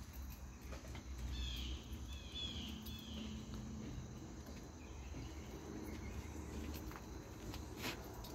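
Quiet outdoor ambience with insects chirping, and a short run of higher chirps about one to three and a half seconds in. A faint click near the end.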